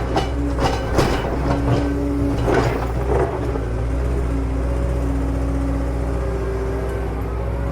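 Excavator engine running steadily, with a few sharp knocks and clanks in the first three seconds and short steady tones coming and going over the engine.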